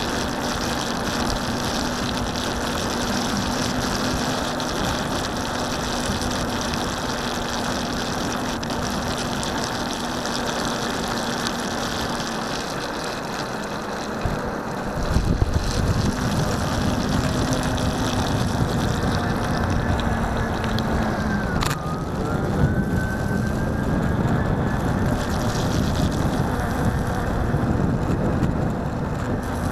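Solowheel self-balancing electric unicycle rolling through rain on a wet road: a steady hiss of the tyre on water under a faint steady hum, with a heavier low rumble from about halfway.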